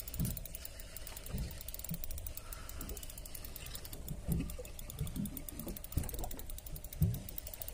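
Fishing reel clicking in a fast, even ratchet under the load of a fish pulling on a bent rod, with a few dull low thumps.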